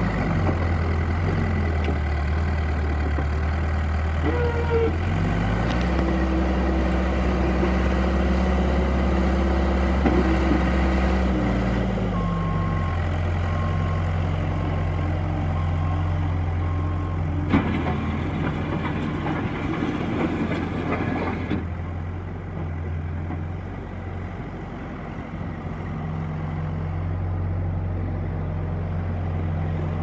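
New Holland LB75 backhoe loader's diesel engine running as the machine works its loader bucket and moves about. The engine speeds up about five seconds in and settles back down a little before halfway.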